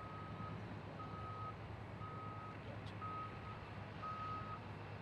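Heavy vehicle's reversing alarm beeping five times, about one beep a second, each beep a single steady tone of about half a second, over a low engine hum; the beeps stop near the end.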